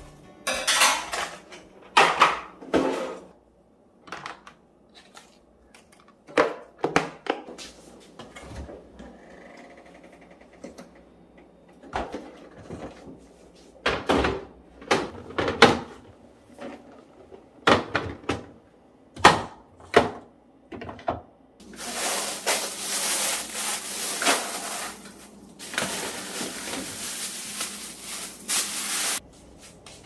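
Plastic egg cartons and food containers being handled, opened and set down on a table and fridge shelves: a string of separate clicks and clacks. Near the end come two stretches of steady rushing noise, each a few seconds long.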